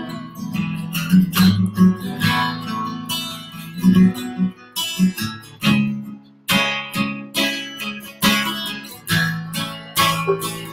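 Acoustic guitar strumming chords in an unaccompanied instrumental passage, one stroke after another.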